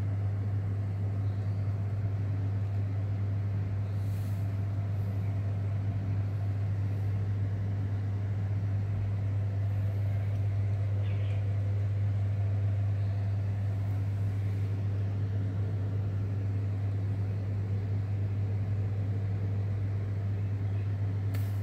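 A 150-watt power amplifier giving out a loud, steady low hum with no change in pitch or level.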